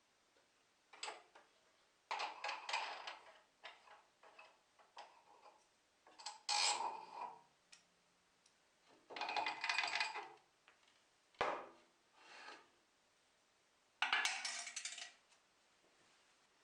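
Homemade plywood jointer fence being handled and adjusted on the machine: about half a dozen short bursts of wood and metal clattering and knocking, separated by pauses, with one sharp knock past the middle.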